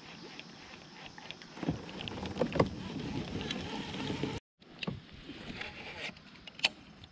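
Scattered knocks and clicks from handling gear in a fishing kayak, over a steady outdoor hiss. The sound cuts out completely for a moment about four seconds in.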